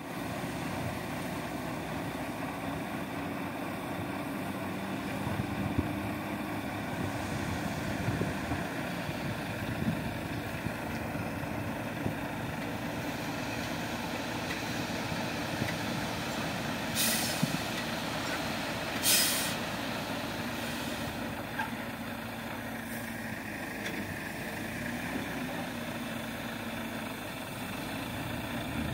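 Volvo FH tipper truck's six-cylinder diesel engine running steadily while the raised dump body tips out earth. Past the halfway point come two short hisses of air from the air brakes, about two seconds apart.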